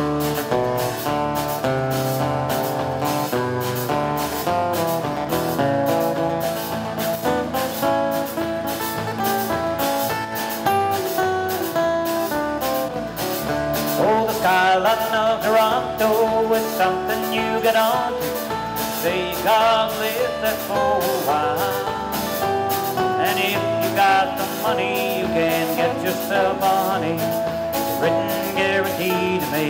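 Live country band playing with guitar and a steady beat; a singer's voice comes in about halfway through.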